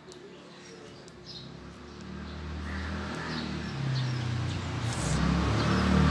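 A motor vehicle's engine running close by, getting steadily louder over several seconds as it approaches, with faint bird chirps.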